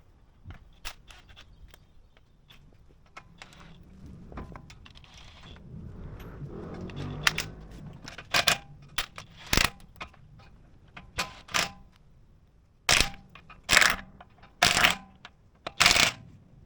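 A series of sharp clicks and knocks, some with a faint metallic ring, growing louder, with four loud clanks close together near the end.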